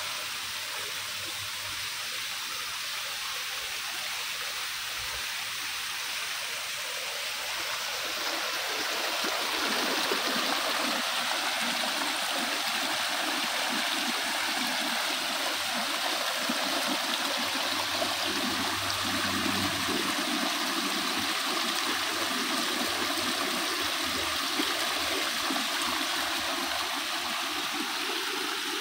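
Water falling and running over rocks in a landscaped garden waterfall, a steady rush. About eight seconds in it gets louder and fuller, the sound of a small cascade tumbling over mossy rocks close by.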